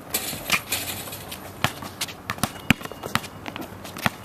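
Basketball bouncing on a hard outdoor court, with players' footsteps: a string of sharp, irregular thuds and knocks, the loudest about two and a half seconds in.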